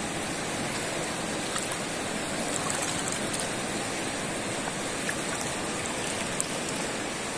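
Fast-flowing river rushing steadily over a rocky bank.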